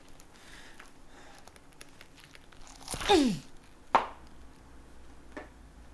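A man's pained groan, sliding down in pitch, about three seconds in, followed a second later by a single sharp hit.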